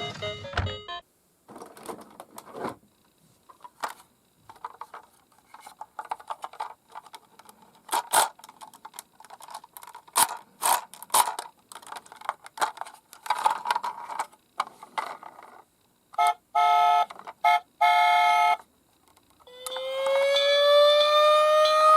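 Toy minicars clicking and knocking as they are handled, then an electronic toy emergency-vehicle sound: rapid beeping for about two seconds, followed near the end by a siren starting to wail with a slowly rising pitch.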